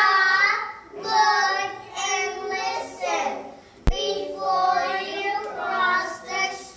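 A young child singing solo in a high voice, with held, gliding notes. One sharp click cuts in about four seconds in.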